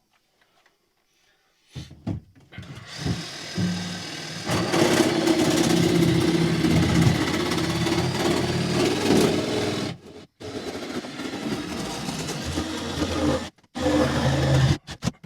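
Power saw cutting out a circular hatch opening in fiberglass, starting about two seconds in and running steadily, with two short stops near the end.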